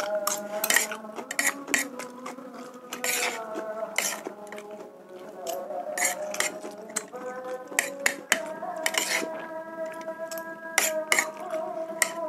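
A metal spoon and fork clicking and scraping on a plastic plate while rice is scooped up and eaten, with many short irregular clinks. Held tones that change pitch every few seconds run underneath.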